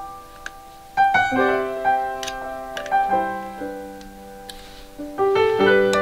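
Background piano music: slow, gentle chords with the notes left ringing, new chords struck about a second in, near three seconds and near five seconds. A few light clicks sound faintly over it.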